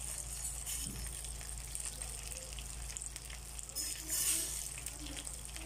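Whole fish frying in oil in a nonstick pan, with a steady sizzle and crackle that swells briefly about four seconds in.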